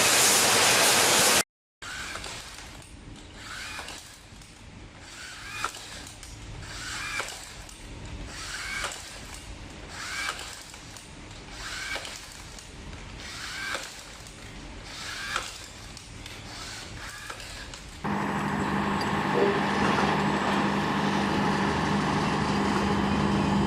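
Battery rebar tying tool tying wire at rebar crossings, a short motor whir ending in a click about every second and a half. About eighteen seconds in it gives way to the louder, steady hum of another rebar-tying machine.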